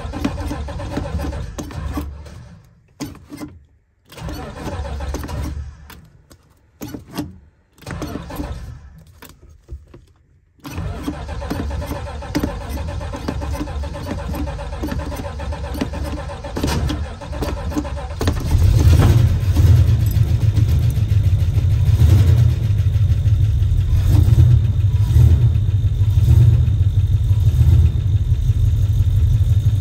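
Dodge Charger engine on a cold start, broken by several abrupt, near-silent gaps during the first ten seconds, then running steadily. From about eighteen seconds in it runs louder, with a deeper rumble.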